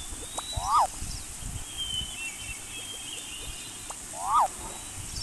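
An animal call, a short cry that rises and then falls in pitch, heard twice about three and a half seconds apart, over outdoor ambience with faint high bird chirps.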